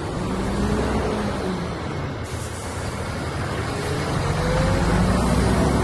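Heavy diesel engine running steadily, its low hum drifting slightly up and down in pitch.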